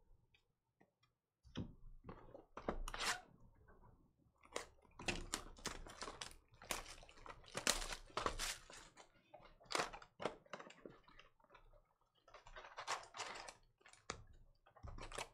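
Plastic shrink-wrap crinkling and tearing and cardboard rustling as a sealed hobby box of trading cards is unwrapped and its lid opened: faint, irregular crackles starting about a second and a half in.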